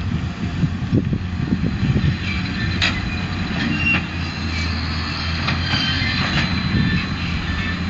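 Claas Ares 816 tractor's diesel engine running steadily while it pulls a Claas Variant 180 RotoCut round baler baling straw: a low, even drone with scattered clicks from the machinery.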